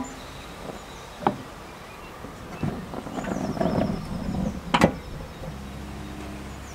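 Cookware and grill handling: a single knock about a second in, a few seconds of rustling and scraping, then a sharp clack near five seconds as the Weber Q gas grill's lid shuts, after which a low steady hum sets in.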